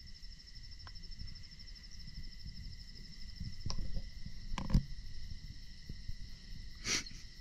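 Crickets trilling steadily in a fast, even pulse, with a second steady insect tone below it. A few short knocks cut in, the loudest a little past halfway.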